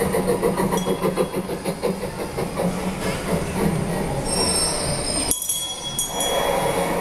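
A trackless kiddie train ride running, giving out a steady train sound. About five seconds in, the low rumble drops away and some high thin tones come in.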